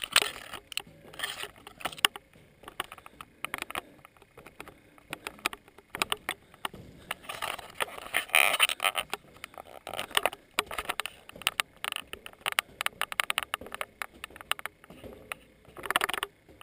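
Footsteps climbing an iron staircase: a run of irregular knocks and scuffs, with a few louder rushes of noise, loudest about halfway through and near the end.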